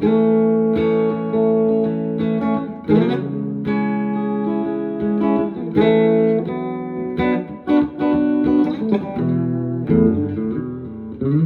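Home-built electric guitar with humbucking pickups and a buffer/booster circuit, played as a passage of ringing chords and picked notes that change every second or two.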